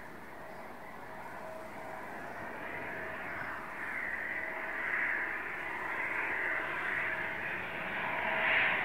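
Eurofighter Typhoon's twin turbofan jet engines approaching on low approach, a rushing jet noise with a faint steady whine, growing steadily louder as the aircraft closes in.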